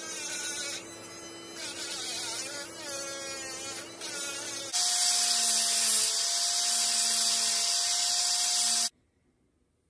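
A high-speed rotary tool with a pink grinding stone grinds down welds on a wire fan guard, its steady motor whine under a wavering grinding hiss as the stone bites. About five seconds in, a louder angle grinder with a higher whine and a harsher hiss takes over on the welds, then cuts off suddenly near the end.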